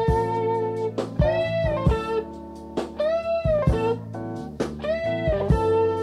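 Live jazz-fusion band playing from an old cassette recording: an electric guitar lead of held, bent notes over bass and drums, with three notes bending up and back down about one, three and five seconds in.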